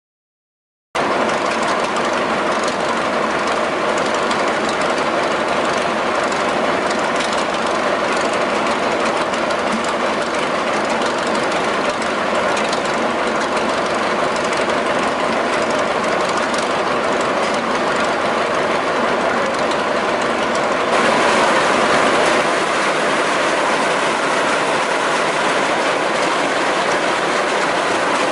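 1926 Twin City gasoline engine of a Northwest 105 dragline running with a steady rhythmic clatter, the sign of a knocking connecting rod. It cuts in suddenly about a second in and briefly gets louder about two-thirds of the way through.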